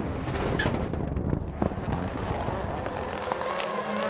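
Turbocharged 600 hp rallycross supercars racing on track: a dense engine rumble broken by sharp exhaust pops and cracks, with one crack standing out about one and a half seconds in.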